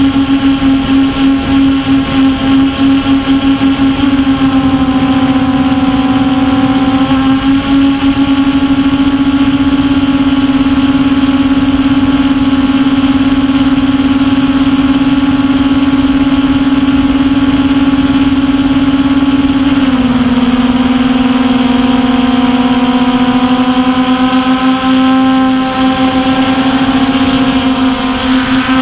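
MJX Bugs 5W quadcopter's brushless motors and propellers humming loudly in flight, picked up close by the camera mounted on the drone. The pitch is steady, with a slight pulsing at first and a small step down in pitch about two-thirds of the way through.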